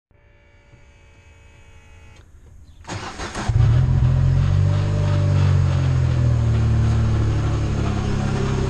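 John Deere Gator utility vehicle being started: a faint steady whine with the key on, then the starter cranks briefly about three seconds in and the engine catches and settles into a loud, steady idle.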